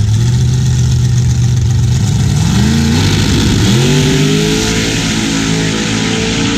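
Drag race cars Goliath 2.0 and Deathtrap launching off the starting line: engine held at a steady pitch, then about two and a half seconds in the pitch climbs, drops once at a gear shift and climbs again as the cars accelerate away down the strip.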